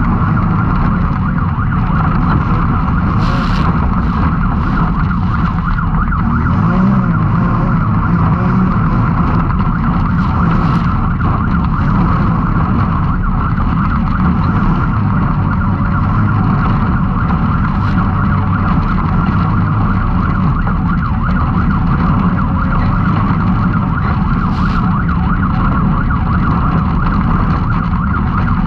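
Can-Am Maverick X3's turbocharged three-cylinder engine running steadily under race load, with a few brief sharp knocks.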